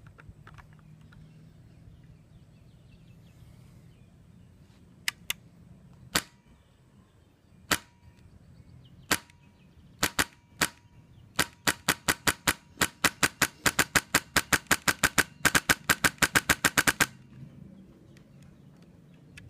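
Airsoft MK18 rifle with a PolarStar Fusion HPA engine firing sharp shots. A few single shots come first, spaced a second or more apart. Then a fast string of about six shots a second from the short-stroke trigger runs for roughly six seconds and stops suddenly.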